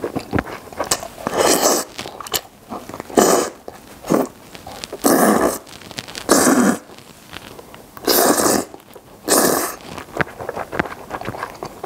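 Close-miked slurping of jjamppong noodles, about six loud half-second slurps one to two seconds apart, with wet chewing and small clicks between them.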